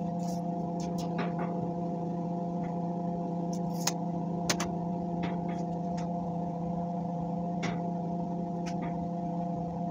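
A steady machine hum with scattered light clicks and ticks.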